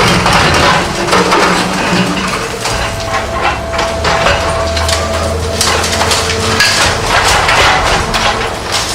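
Remote-controlled demolition robot working concrete: irregular cracking and crunching of concrete breaking, over the machine's steady hum.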